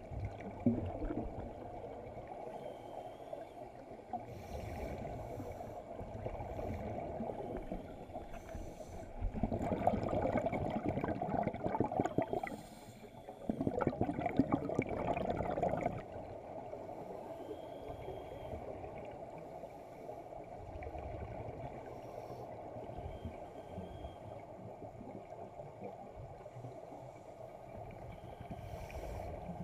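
Scuba regulator exhaust bubbles, heard underwater as divers breathe out. Two louder stretches of dense bubbling, each about three seconds long with a short pause between them, come about a third of the way in.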